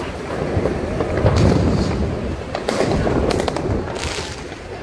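New Year's Eve fireworks and firecrackers going off all around: a jumble of sharp bangs and crackles at irregular moments over a continuous low rumble.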